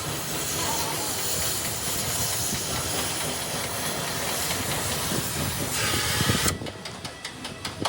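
Steady, loud hissing noise that cuts off about six and a half seconds in, followed by a quieter run of rapid, evenly spaced clicks.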